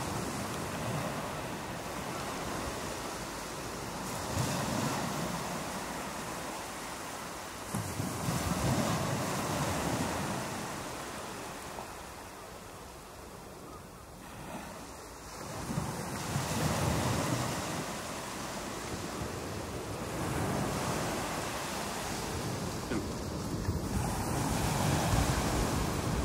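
Ocean surf washing in, its hiss swelling and fading every few seconds, with wind gusting across the microphone in low buffets.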